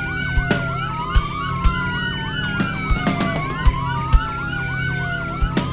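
Police siren wailing, its pitch rising and falling in slow cycles of about two and a half seconds. Under it runs a film score with a low drone and scattered drum hits.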